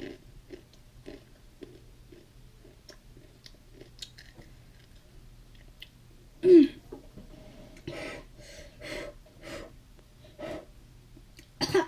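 A person chewing chips with faint crunches, then a short loud vocal cry with falling pitch about six and a half seconds in, followed by several heavy breathy huffs and gasps and a sharp burst of breath near the end: a reaction to the burn of Sriracha hot chili sauce.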